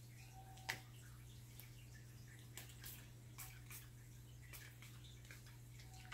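Near silence: a steady low room hum with a few faint, scattered clicks and taps, the loudest just under a second in.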